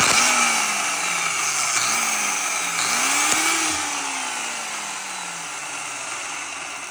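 Graco X5 Magnum paint sprayer's electric motor and pump switching on suddenly and running loudly with a dense, high whir. A few lower wavering tones rise and fall in the first few seconds, and the whole easing slightly as it runs.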